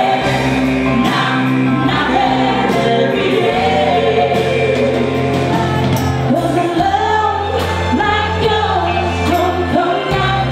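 Live band music: a woman sings the lead line over bass guitar, drums and keyboards, with sustained bass notes under it.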